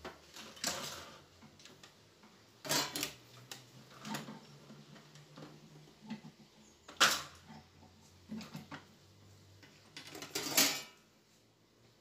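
Handling clatter: a circuit board and tools bumping against the open stereo's sheet-metal chassis, about half a dozen separate knocks, the loudest about seven seconds in and a longer scrape near the end.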